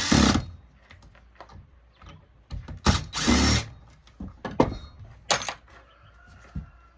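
A power drill/driver run in short bursts, a second or less each, as the electronics panel is taken apart, with scattered clicks of parts being handled in between.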